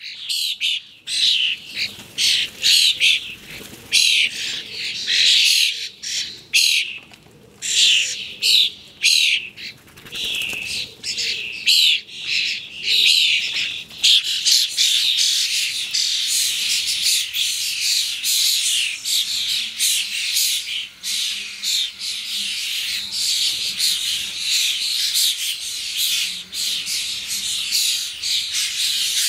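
A flock of common starlings, many of them juveniles, calling and chattering in dense, overlapping calls. Short pauses break it at first, then it runs on nearly without a break from about halfway.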